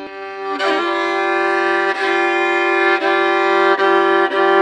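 Background music of long held notes that change about once a second, over a steady low tone.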